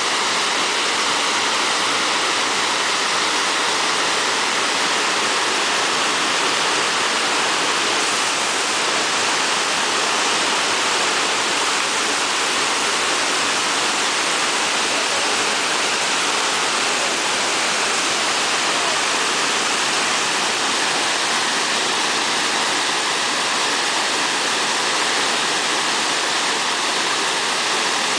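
Muddy floodwater pouring over a low river weir and churning in the pool below: a steady, unbroken rush of falling water, the river still running high the day after a flood.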